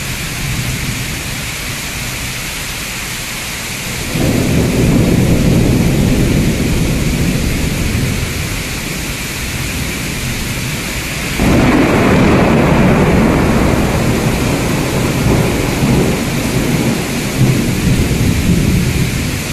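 Heavy rain falling steadily, with thunder. A low rumble breaks in about four seconds in and fades away, then a second, louder clap comes in sharply around the middle and rolls on as a rumble.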